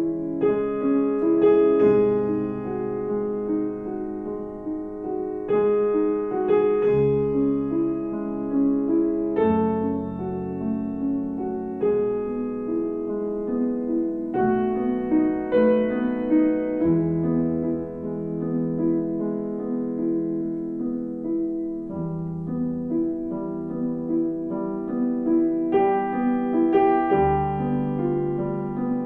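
Background piano music: notes struck over held chords that change every couple of seconds.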